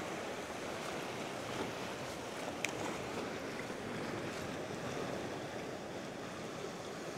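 Ocean surf washing steadily against a rock shelf, with a single sharp click about two and a half seconds in.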